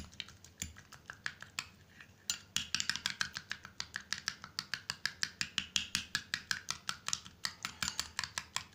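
Metal spoon beating instant coffee powder and a spoonful of water in a glass bowl, clicking against the glass. It starts with a few scattered taps, then quickens after about two seconds into a steady run of about six clicks a second.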